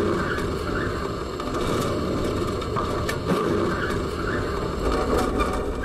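Noise inside a moving tram's driver's cab as it runs along the rails: a steady rumble with scattered clicks and rattles.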